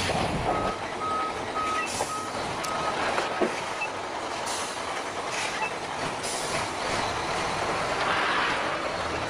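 A construction vehicle's reversing alarm beeping at one steady pitch, about two beeps a second, for a couple of seconds near the start, over a steady rushing noise. A low rumble sounds at the very start, and there is a single sharp click about three and a half seconds in.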